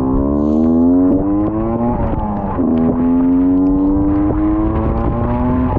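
Two-stroke Honda NSR motorcycle engine pulling under acceleration, its pitch climbing steadily, dipping about two seconds in at a gear change, then climbing again. The engine is heard over a hiss of wind and rain on a wet road.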